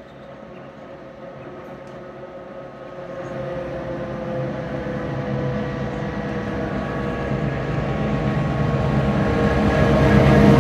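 A train approaching, growing steadily louder. A low engine hum and several steady tones build until it is close and loudest near the end.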